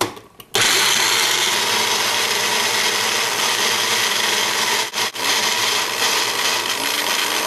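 Small bullet-style personal blender running loudly, grinding mint leaves, green chilies, tamarind and spices into a fine wet paste. It starts suddenly about half a second in and cuts out for a moment twice about five seconds in before running on.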